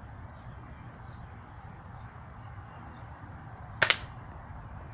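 A BB gun firing: one sharp crack, a quick double snap, near the end, over a low background.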